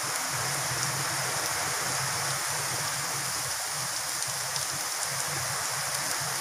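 Steady sizzle of an onion, green chilli and scrambled egg masala frying in oil in a steel kadai.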